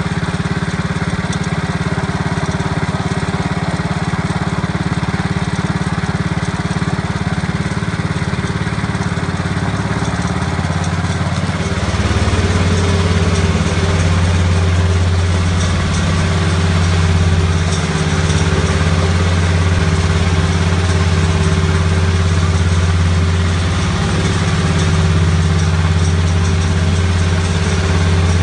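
A small engine running steadily. About twelve seconds in, its note shifts deeper and it gets slightly louder.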